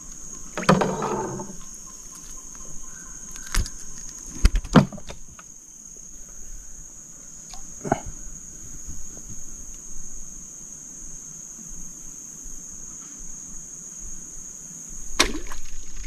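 Insects droning steadily in a single high-pitched tone. A short rustle about a second in, and a few sharp knocks scattered through it.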